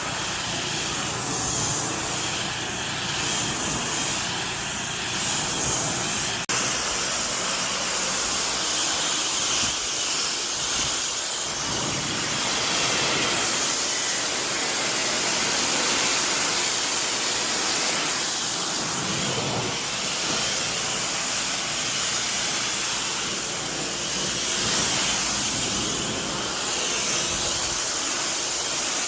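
Pressure washer spraying water, a steady hiss, with a sudden jump in level about six and a half seconds in.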